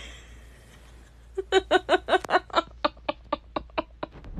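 A person laughing, starting about a second and a half in: a quick run of short "ha" bursts, about five a second, growing fainter.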